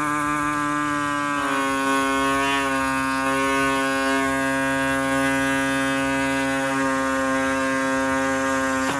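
Pneumatic reciprocating body saw running at full speed, a steady high buzz as its blade cuts through the plastic of a truck grille insert. Its pitch dips slightly about a second and a half in as the blade takes the load, then holds steady.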